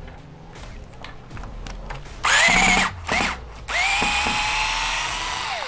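Cordless electric screwdriver with a 3 mm hex bit backing screws out of a differential case cover. Its motor whines up about two seconds in, runs again briefly, then runs longer at a steady pitch and winds down near the end.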